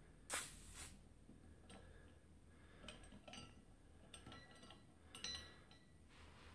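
Swing-top beer bottle being opened: a short hiss of escaping gas lasting about half a second, followed by several light clinks of the ceramic stopper and wire bail against the glass bottle.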